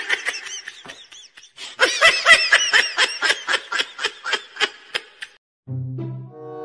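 Rapid, high-pitched laughter in two bursts: a short one at the start and a longer one from about two seconds in, lasting about three seconds. Near the end it gives way to a few low, horn-like music notes.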